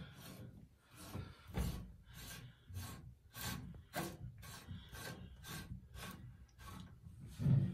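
A retaining nut being threaded by hand onto a Delta shower valve cartridge: a run of short scraping rubs, about two to three a second, as the fingers turn it.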